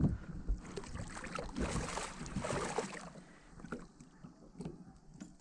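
Water splashing and sloshing around a landing net that holds a netted muskie. Busiest for the first three seconds, then settling to faint lapping with a few small knocks.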